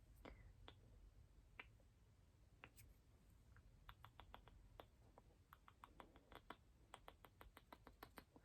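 Quiet, close-up ASMR mouth sounds: sharp wet tongue and lip clicks, a few scattered at first, then a quick run of clicks from about four seconds in.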